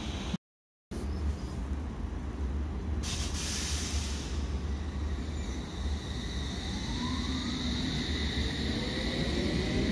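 London Underground S Stock train pulling away from the platform, over a steady low rumble. A short burst of air hiss comes about three seconds in. From about six and a half seconds the traction motors whine, rising in pitch as the train accelerates.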